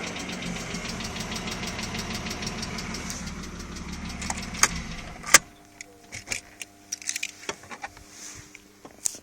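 BMW E36's M50 2.0 straight-six engine idling with a rapid, even ticking knock, which the owner suspects comes from the hydraulic lifters. About five seconds in it shuts off with a sharp click, followed by scattered small clicks.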